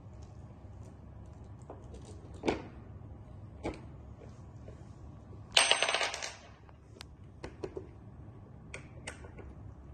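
Loose metal screws rattle and clink in a short burst about halfway through, with scattered light clicks and taps before and after.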